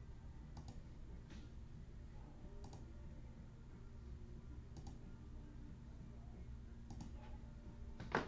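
A few faint, scattered clicks over a low steady hum, with one sharper click near the end.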